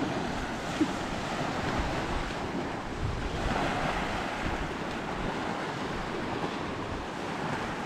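Small waves breaking and washing up a sandy beach, with wind buffeting the microphone.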